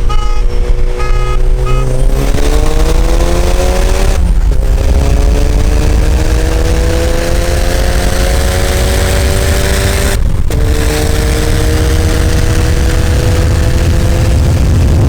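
Car engine heard from inside the cabin, pulling hard under full throttle in a roll race: its pitch climbs steadily, drops briefly at an upshift about four seconds in and again about ten seconds in, then climbs again. A few short beeps sound in the first two seconds.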